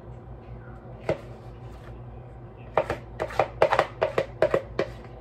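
Plastic spatula knocking and scraping against a plastic mixing bowl while the last of the pudding mixture is scraped out: one knock about a second in, then a quick run of about ten knocks over two seconds near the end.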